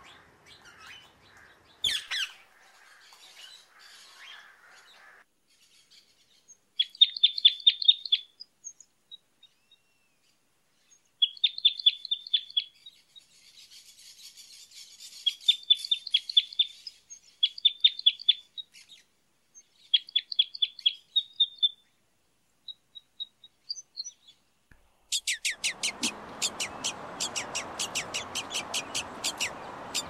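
Birds calling in short bouts of rapid, high chirps with gaps of silence between them. About 25 seconds in, a denser, continuous run of chirps starts over a steady rushing noise.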